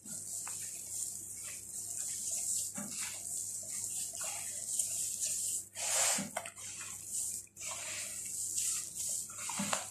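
Hands rubbing butter into flour and mixing a crumbly biscuit dough in a plastic bowl: irregular rustling, scraping swishes about every second or two, the loudest about six seconds in, over a steady hiss.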